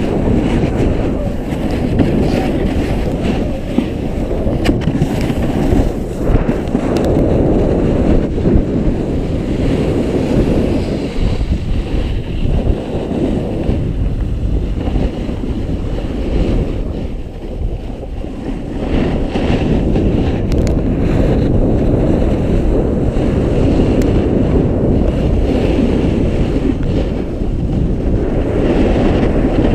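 Wind rushing over an action camera's microphone together with a snowboard scraping and carving over groomed snow during a downhill run, a steady loud rush that eases briefly a little past halfway.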